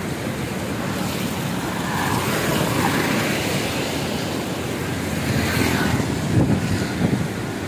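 Fast, swollen floodwater rushing below a canal barrage after heavy rain, mixed with wind buffeting the microphone. A motorcycle passes on the wet road near the end.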